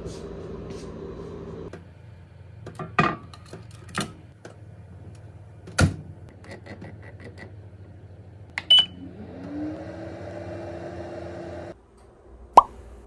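Toshiba microwave combination oven being loaded and started: a few knocks as the tray goes in and the door shuts, a short button beep, then the fan motor spinning up with a rising hum before it cuts off. A sharp, loud click near the end.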